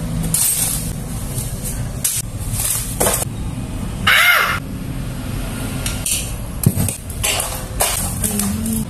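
Unpacking and handling noises: several short rustling, scraping bursts from plastic packaging and a folding pruning saw, the loudest about four seconds in, and a sharp click a little later, over a steady low hum.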